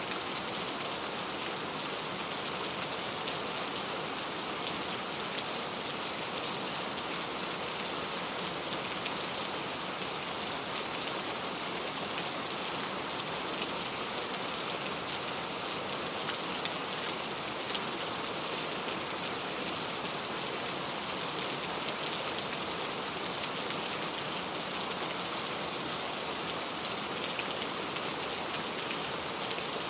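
Steady rain falling, with a continuous hiss and many individual drops ticking.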